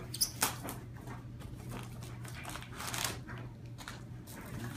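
Cardboard shipping box being opened by hand: the lid and paper packing rustle and crackle in irregular bursts, with a couple of sharper cracks early on.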